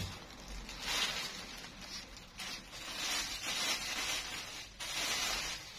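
Rustling as a garment (an abaya or dress) is handled and spread out for display, coming in several spells: about a second in, a longer stretch in the middle, and again near the end.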